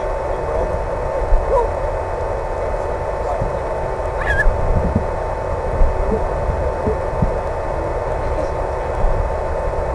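Steady hum and hiss with a constant high-pitched tone, a low rumble underneath and a few faint short chirps.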